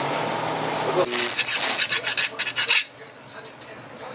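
A GY6 150cc single-cylinder scooter engine running steadily, its note dropping as it shuts off about a second in. This is followed by about two seconds of rapid, harsh rasping scrapes, then it goes much quieter.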